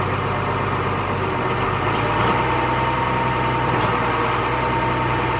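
Heavy harvest machinery's diesel engine running steadily, with a steady whine above the engine hum.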